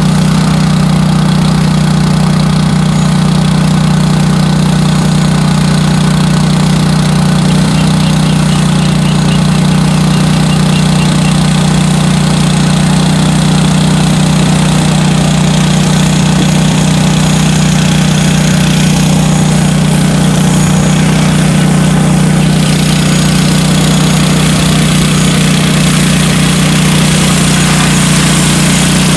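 Six-rotor crop-spraying drone flying close by, its propellers making a loud, steady hum with a low buzzing tone.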